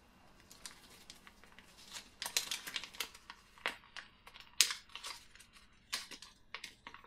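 Small folded paper instruction leaflet from a Kinder Surprise egg being unfolded by hand: an irregular run of crisp paper crackles and rustles, busiest about two seconds in.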